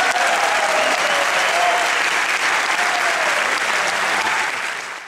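Theatre audience applauding, with a few voices calling out over the clapping. It cuts off sharply at the end.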